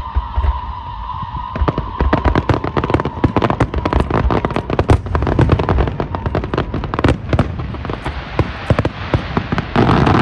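Aerial fireworks going off in a rapid barrage. Deep booms are joined, about a second and a half in, by dense crackling bangs, many per second.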